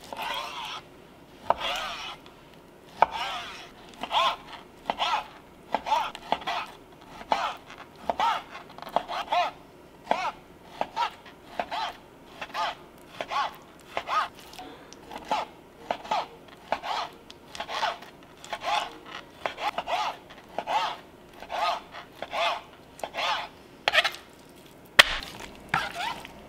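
A chef's knife slices through raw chicken breast and knocks on a plastic cutting board in an even run of cuts, about one or two a second. There is one sharper click near the end.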